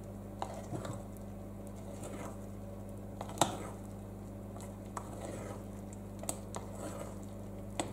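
A metal spoon folding flour into cake batter in a glass mixing bowl: soft scraping and scattered light clicks of the spoon against the glass, the sharpest about three and a half seconds in. A steady low hum runs underneath.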